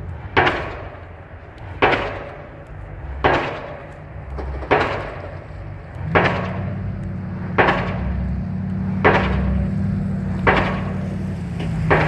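A pile driver's hammer striking a pile at a steady beat, about one blow every second and a half, each with a short ringing tail. A low engine hum comes in about halfway through.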